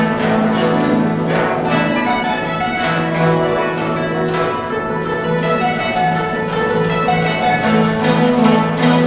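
Guzheng playing a fast, busy passage: rapid plucked notes over a steadily repeated low note.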